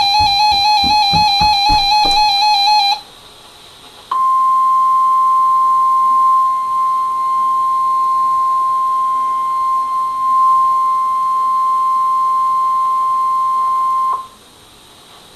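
NOAA Weather Radio 1050 Hz warning alarm tone, one steady high-pitched tone lasting about ten seconds, starting about four seconds in, sent to trigger weather alert receivers during the required weekly test. Before it, a short stretch of music ends about three seconds in.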